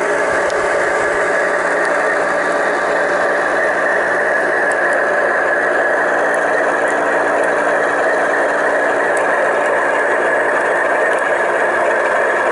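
G-scale model train running: a diesel locomotive pushing a rotary snowplough through snow, its motors and spinning rotor making a steady, unchanging mechanical drone.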